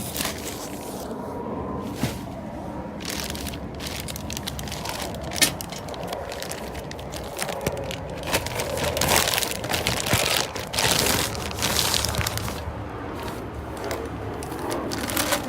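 Packaging crinkling, crunching and crackling in irregular handling noises as exhaust test pipes are unwrapped and lifted out of their box.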